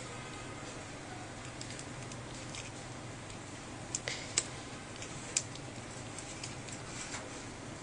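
A few small, sharp clicks and taps from fingertips handling the new battery's tiny plastic connector on a tablet's circuit board: a quick cluster about four seconds in and one more a second later, over a faint steady hum.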